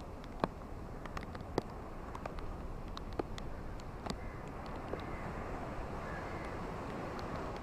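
Steady rain falling, an even hiss with scattered sharp ticks of individual drops striking close by.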